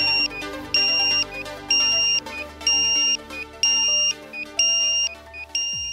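A quadcopter's alarm buzzer beeping about once a second after a crash, each a long high beep followed by a short lower blip, over background music.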